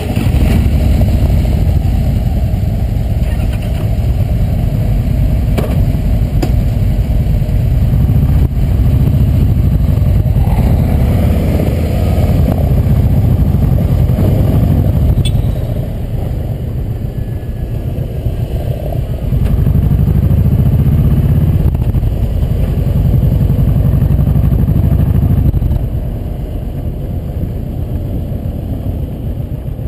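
Kawasaki Vulcan Voyager VN1700's V-twin engine, just started, running as the motorcycle pulls away and rides at low speed. The rumble rises and falls with the throttle, easing off about halfway through and again near the end.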